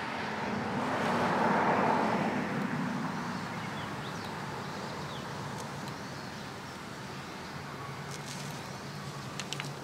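A vehicle passing by: its road and engine noise swells to a peak about two seconds in and slowly fades, followed by a steady low engine hum, with a few light clicks near the end.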